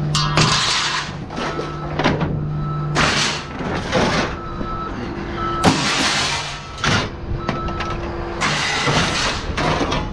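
Heavy machine engine running steadily while scrap metal crashes and clatters several times as it is moved.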